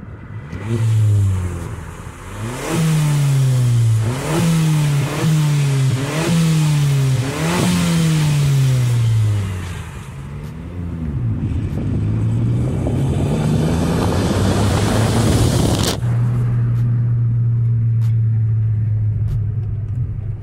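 Volkswagen Polo engine with its muffler removed, heard out of an open window while driving. The engine note jumps up and falls away several times in a row, then climbs more slowly. About 16 s in it settles into a steady low drone as the rushing hiss cuts off.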